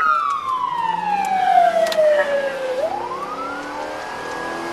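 Police siren on its wail setting: one long slow fall in pitch, then a quick sweep back up about three seconds in, holding high near the end.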